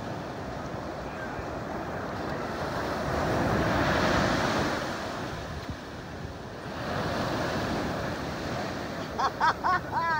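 Ocean surf breaking and washing up the beach, swelling louder about four seconds in and again around eight seconds. Near the end, four short high-pitched calls in quick succession.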